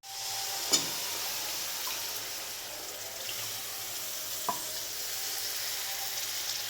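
Food sizzling steadily in a hot pan, with a couple of light clicks from a utensil.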